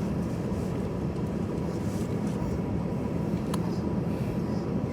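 Steady low drone inside the cabin of an Airbus A320-214 taxiing, its CFM56 engines at idle thrust, with a faint steady whine and a single small click about three and a half seconds in.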